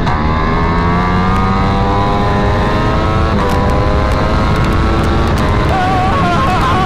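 Sportbike engine at full throttle down a racetrack straight, its pitch climbing steadily with quick upshifts about three and five seconds in, over heavy wind rush, as heard through a helmet microphone tucked behind the chin bar at speeds near 180 mph.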